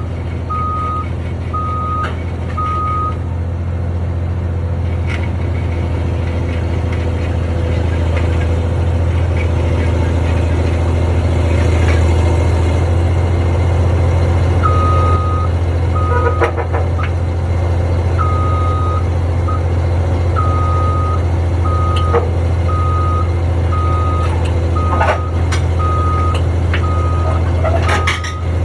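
Heavy construction machine's engine running with a loud, steady low drone while its reversing alarm beeps about once a second. The beeping stops a few seconds in and starts again about halfway through.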